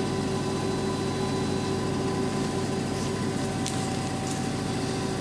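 Lucas 542B-84 CNC horizontal boring mill running, a steady machine hum of motors and drives with a few held tones over a low drone.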